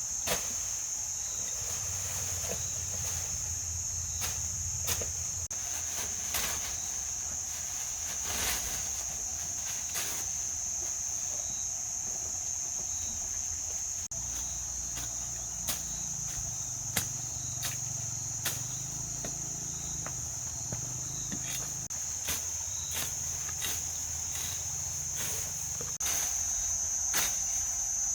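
Steady high-pitched chorus of insects, with scattered sharp clicks and knocks over it.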